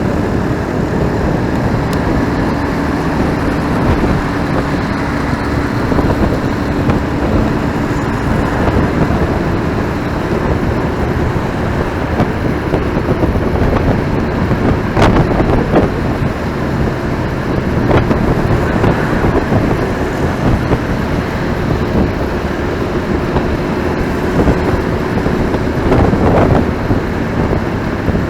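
Ride-along road noise from a motorcycle in city traffic: the bike's engine running steadily under wind rush and passing traffic. A couple of brief sharp sounds come about halfway through.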